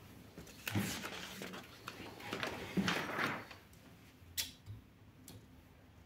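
Sheet of paper being picked up and slid into a Litton Royal 203 portable typewriter: two rustling, scraping sweeps, then a couple of sharp mechanical clicks from the typewriter's carriage levers.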